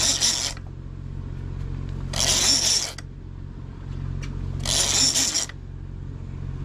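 Fishing reel cranked in short bursts, each under a second and repeating about every two and a half seconds, with a ratcheting mechanical whirr: line being wound in while a fish is fought. A steady low hum runs underneath.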